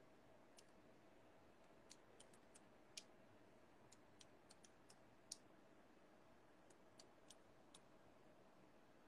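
Near silence broken by faint, irregular light clicks, about twenty in all, with two sharper ones about three and five seconds in.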